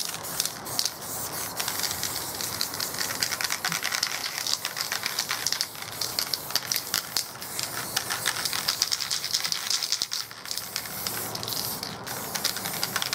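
Aerosol can of black spray paint fitted with a wide green cap, hissing in many short, rapid bursts as it fills in a black background, with some rattling from the can.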